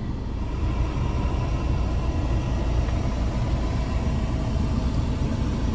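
Steady low vehicle rumble heard inside a parked van's cab, with a faint steady hum above it.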